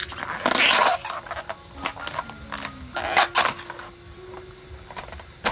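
Banana flower bracts being peeled back and snapped off by hand: crisp tearing and rustling strokes with small clicks, loudest about half a second in and again around three seconds in.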